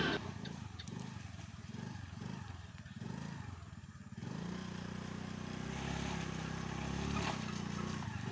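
Honda Dio scooter's small engine running at low revs as it rolls slowly downhill, its hum growing louder about four seconds in.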